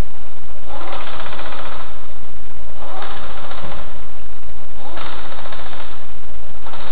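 Loud rattling mechanical noise in bursts about a second long, repeating roughly every two seconds, over a constant low rumble.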